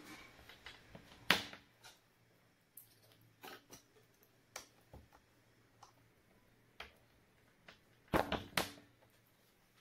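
Small plastic lotion pump parts clicking and tapping as they are handled and pressed together by hand: scattered sharp clicks, a louder one about a second in and a quick run of clicks near the end.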